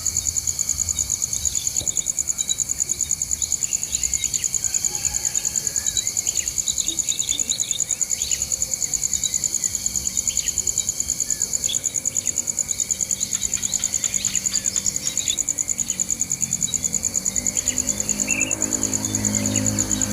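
A steady, high-pitched, rapidly pulsing insect trill, like a cricket chorus, with scattered short bird chirps over it. Music comes in near the end.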